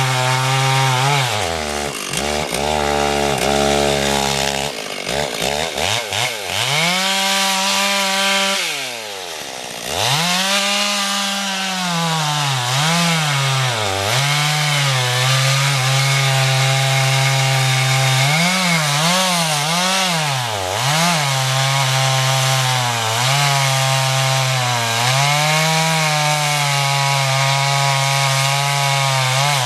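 Chainsaw cutting through wood. The engine speed repeatedly sags and recovers as the chain bites, with a deep drop about eight seconds in and a few quick dips near the two-thirds mark.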